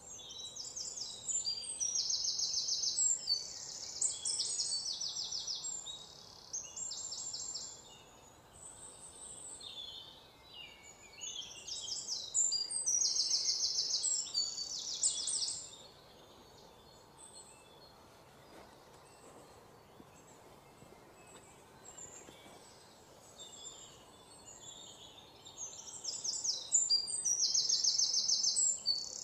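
High-pitched, rapidly pulsed trilling calls from wild creatures around, coming in bouts of one to a few seconds, with a quieter stretch in the middle.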